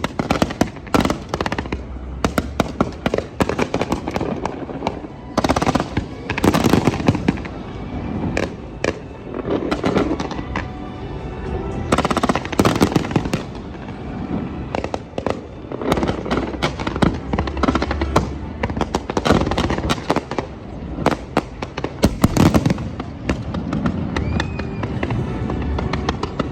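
Fireworks show: rapid volleys of bangs and crackling, heaviest in clusters every several seconds, with music playing underneath.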